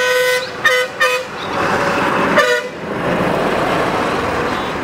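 Vehicle horns honking on a busy highway: a long blast ends just after the start, two short toots follow about a second in, and another comes near the middle. Between them runs the steady noise of heavy traffic, a truck passing close by.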